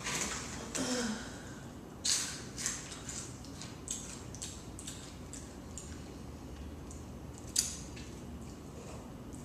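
Close-up mouth sounds of someone eating pizza: wet chewing and lip smacks. They come as a series of short clicks, the sharpest about two seconds in and again near the end.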